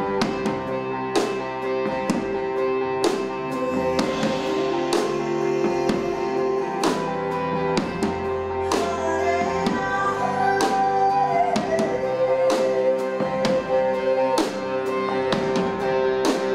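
Live pop music from a Yamaha stage piano and an acoustic guitar, with sustained chords and a regular beat of percussive hits.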